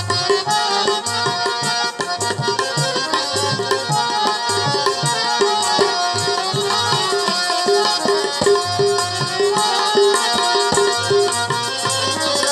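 Instrumental passage of a qawwali-style devotional song: tabla drumming a steady rhythm under held melody notes.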